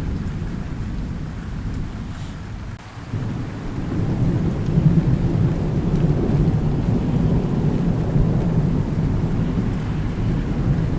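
Thunder rumbling low over steady rain. The rumble eases about three seconds in, then swells into a long, louder roll.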